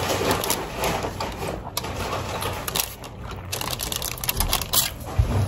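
Irregular clicks and rustling from a pita sandwich being picked apart by hand and eaten.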